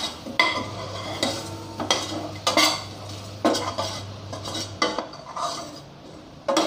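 Steel spatula scraping and clinking against the sides and bottom of a stainless steel pot, repeated strokes about once a second, as spice powders are stirred into shallots and tomatoes cooking in oil.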